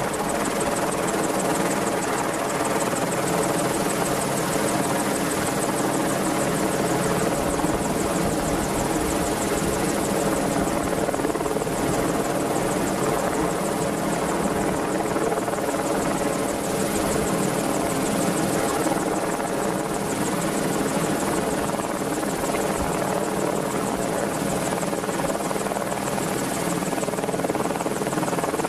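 Merlin helicopter's rotors and turbine engines running steadily, a loud, even drone with no change in pitch or level.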